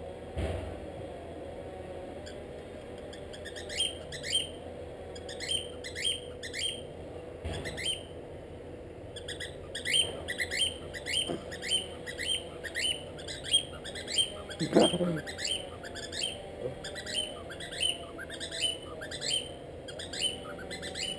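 Cockatiel chirping over and over: short rising calls that begin a few seconds in and come faster, about two a second, in the second half.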